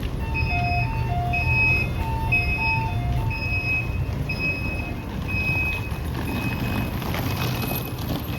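Electronic street signal: high beeps repeat about once a second, and for the first three seconds or so a two-note chime alternates under them, over a steady low rumble of traffic.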